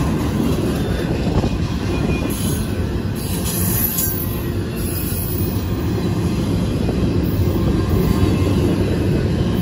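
Double-stack intermodal container well cars rolling past at speed, a steady rumble of steel wheels on rail. A high squeal from the wheels joins from about two to five seconds in.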